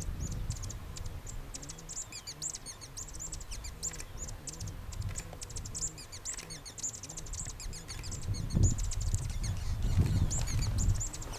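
Male Peruvian Sheartail displaying at close range: a rapid, continuous series of high-pitched chirping notes. Underneath runs a low rumble that swells twice near the end and is the loudest part.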